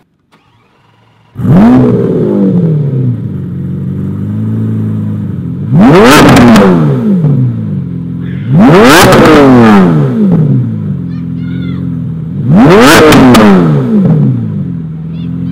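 Lamborghini Aventador SV's V12 starting about a second in, flaring and settling to a steady idle. It is then revved three times, each a brief sharp rise that falls back to idle.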